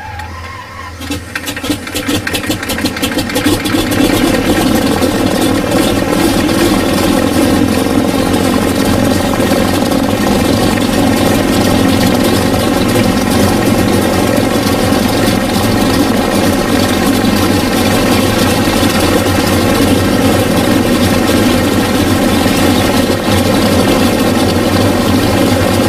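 Beechcraft C-45 Expeditor's Pratt & Whitney R-985 nine-cylinder radial engines starting up. There are a couple of seconds of quick cranking clicks, then the first engine catches and runs steadily and loudly, and the second engine is started and joins it.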